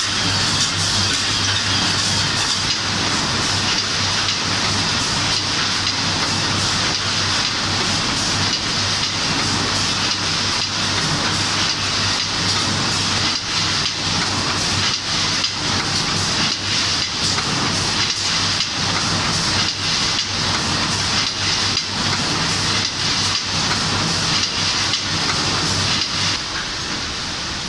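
Sargiani 20-litre pail production line running: a steady machine drone over a low hum, with dense, irregular metallic clicking and clatter as the tinplate pail bodies are handled. It gets a little quieter near the end.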